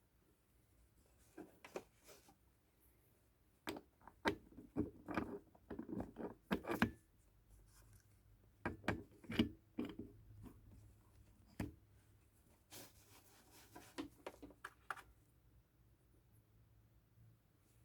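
Motorcycle carburetor parts being wiped with a towel and handled: irregular bursts of rubbing and scraping mixed with small clicks and knocks of metal parts.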